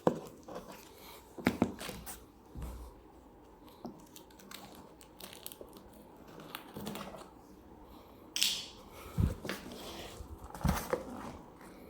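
A cardboard shipping box being cut open and its packing handled: scattered knocks, scrapes and crinkles, a sharp ripping sound about eight seconds in, and a few dull thumps near the end.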